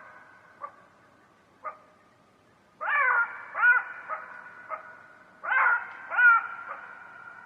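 An animal, most likely a dog, giving short yelping calls in two quick pairs about two and a half seconds apart, with faint short clicks in between.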